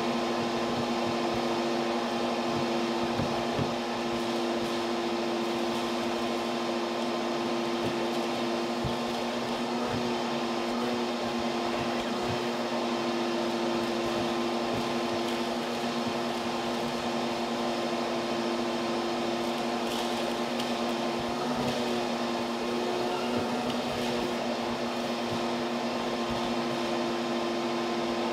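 Vacuum running steadily, a constant hum with two low steady tones under a rushing noise, its hose nozzle sucking yellowjackets off the nest comb.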